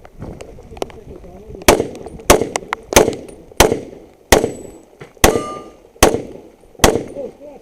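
Handgun shots fired in a match stage string, about eight spaced roughly two-thirds of a second to a second apart. One shot about five seconds in is followed by a lingering metallic ring.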